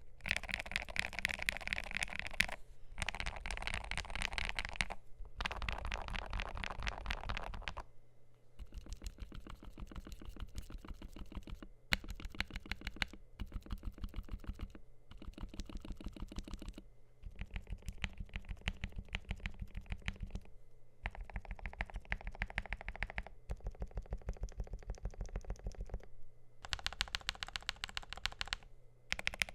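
Typing on a MelGeek Made68 Pro magnetic keyboard with lubed Gateron KS-20 Magnetic White switches and ABS double-shot keycaps on an aluminium plate: fast runs of keystroke clicks, broken by short pauses every few seconds.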